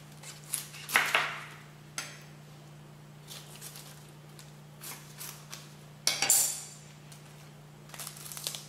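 Kitchen knife cutting the core out of a Napa cabbage on a cutting board: a few scattered crisp cuts and knocks of the blade, the loudest about a second in and about six seconds in.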